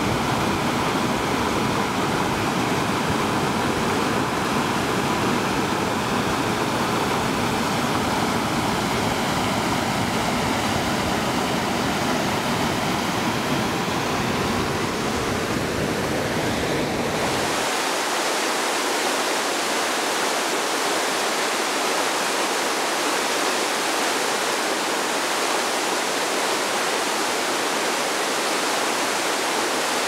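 Steady rushing of water from a waterfall and rocky stream. A little over halfway through it changes abruptly to a thinner rush with the deep rumble gone.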